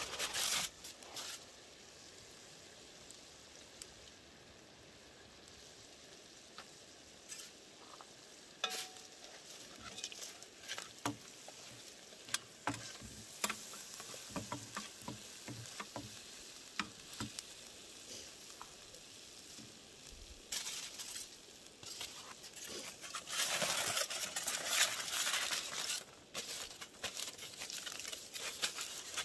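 Stew simmering and sizzling in a cast iron pot over a campfire, with scattered pops and crackles. Aluminium foil crinkles loudly as it is lifted off at the start and crimped back over the pot in the last several seconds.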